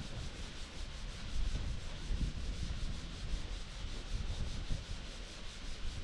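Continuous sanding on a truck's wheel flare, an even rasping scrub.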